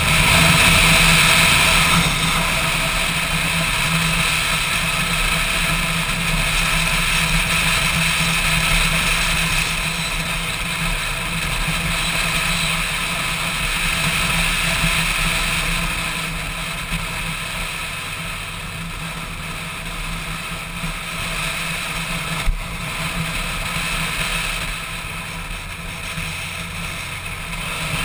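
Motorcycle engine running at a steady riding pace, with wind rushing over the camera's microphone. A single sharp knock about four-fifths of the way through.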